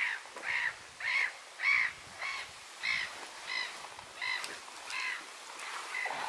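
A bird calling over and over, about ten evenly spaced calls, roughly one every two-thirds of a second.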